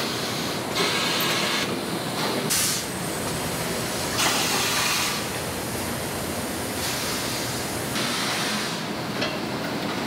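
Steady running noise of shirt-pressing machinery, broken by four loud bursts of hiss lasting under a second each, from the presses venting.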